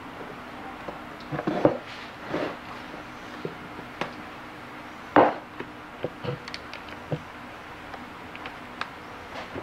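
Handling noises: a plastic bag and packet rustle and knock against a benchtop in short, scattered bursts, with one sharper knock about five seconds in.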